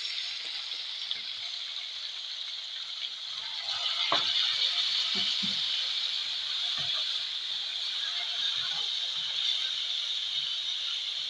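Pieces of rohu fish deep-frying in hot oil in a wok: a steady sizzle with scattered crackles, louder from about four seconds in.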